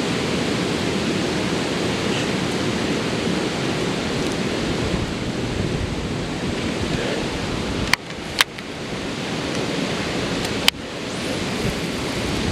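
Steady rushing of creek water, an even noise with no let-up. It is broken by three sharp clicks, two close together about eight seconds in and one near eleven seconds.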